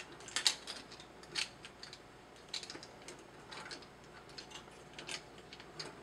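Light plastic clicks and taps from a transforming robot action figure as a weapon accessory is handled and pegged into a storage point on its back, a handful of scattered clicks with the strongest near the start.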